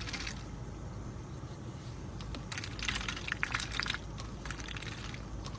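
A white domestic duck dabbling its bill in a plastic cup of water: quick clusters of clicking and crackling as the bill works against the cup and the water, thickest in the middle and again near the end, over a steady low rumble.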